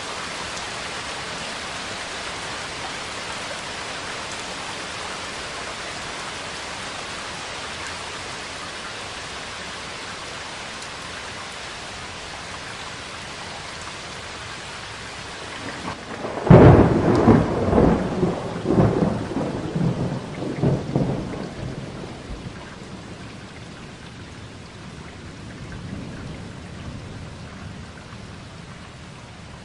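Steady rain falling, then about halfway through a sudden loud crack of thunder that rolls on in crackling peals for several seconds and fades into a low rumble under the rain.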